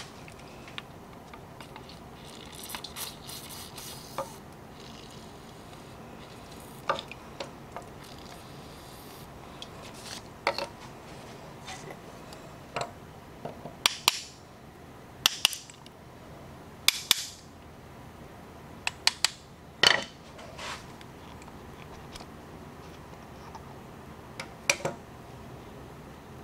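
A short spray hiss, then a series of sharp metal taps and clinks as a hammer drives the barrel wedge out of an 1851 Navy cap-and-ball revolver on a steel bench. The loudest taps come in a cluster about halfway through, some ringing briefly.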